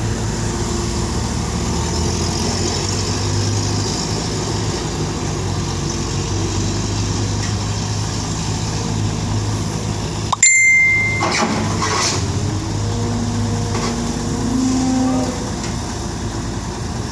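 Heavy machinery engine running steadily during the loading of a wheeled backhoe. About ten seconds in, the sound breaks off suddenly, then comes a short high beep and a few metallic clanks.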